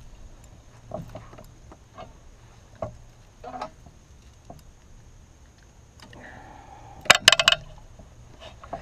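Small clicks and taps of a frog lure and its hooks being worked out of a bass's mouth while the fish hangs from a metal lip gripper, then a quick burst of loud rattling clicks about seven seconds in.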